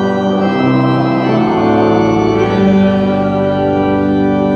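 Church organ playing the held chords of the sung Amen, moving to a new chord several times.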